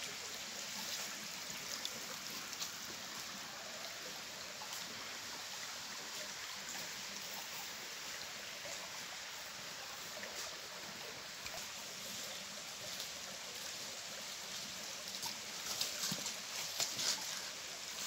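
Shallow forest stream running over stones, a steady trickling rush of water. Near the end, footsteps on gravel and pebbles join it.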